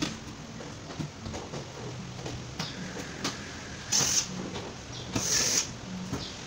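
A cordless drill driving screws into a front-loading washing machine's rear cover in two short bursts, about four and five seconds in, among clicks and knocks of the cover being handled and fitted.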